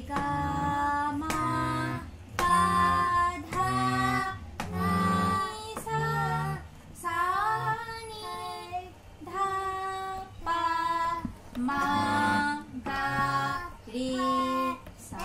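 A small child singing in short phrases, each about a second long with brief breaks between them, over steady harmonium reed notes sounded as she presses the keys.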